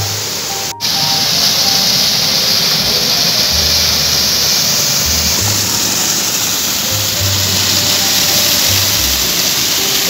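Background music with a low bass line laid over a steady rush of falling water. The sound cuts out for an instant about a second in.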